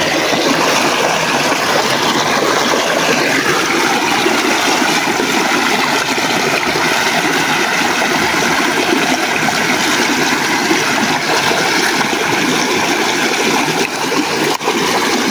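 Shallow stream water rushing steadily over rocks in a small cascade, with a couple of short sharp clicks near the end.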